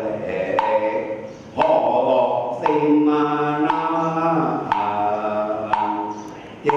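A group of voices chanting in unison, kept in time by a wooden block struck about once a second.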